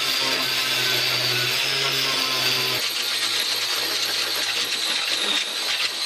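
A power grinder grinding down fresh welds on the car-body sheet metal: a steady, harsh grinding hiss, with its low hum dropping away about three seconds in.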